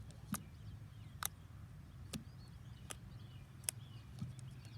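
Homemade slime being squeezed and stretched by hand, giving sharp clicking pops about once a second over a low steady hum.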